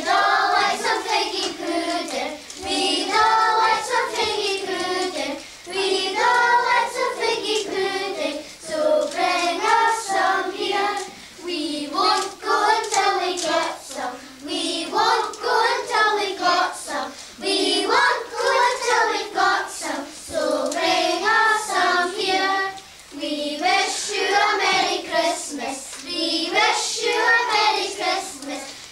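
A group of young children singing a song together, the voices holding notes and moving in phrases.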